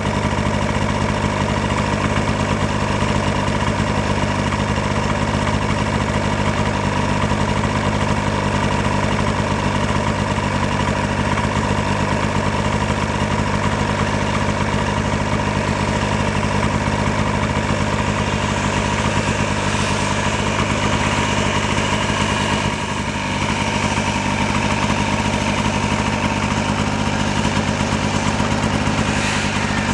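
Snowmobile engine idling steadily, with a short dip in level about three quarters of the way through.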